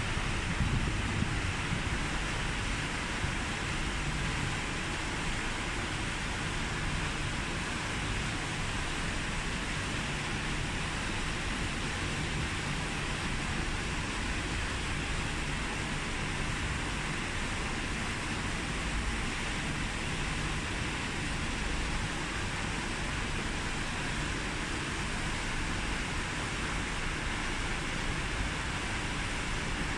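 Steady wind noise on the microphone: an even rushing hiss over an uneven low rumble.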